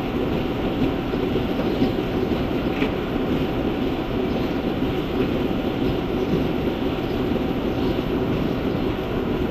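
Dairy milking-shed machinery running during milking: a steady, even mechanical noise with a faint constant tone through it.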